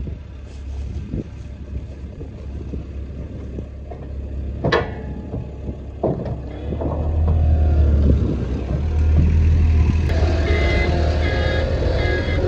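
Avant 635 mini loader's diesel engine running as the loader drives up the steel trailer ramps, getting louder from about six seconds in, with a couple of sharp knocks before that. Music with a steady pulse comes in near the end.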